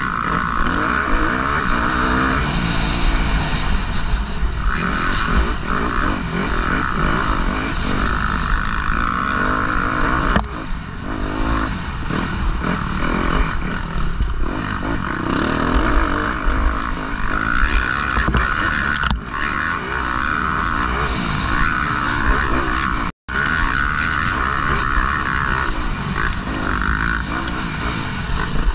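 Motocross bike engine, heard from a helmet-mounted camera, revving up and down continuously as the rider works the throttle around the track. It eases off briefly a couple of times, and the sound cuts out completely for a split second late on.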